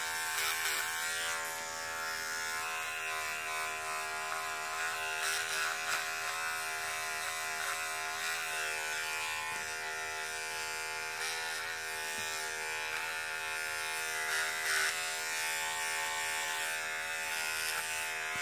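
Electric beard trimmer running with a steady buzz as it is worked over a sock, trimming off loose threads.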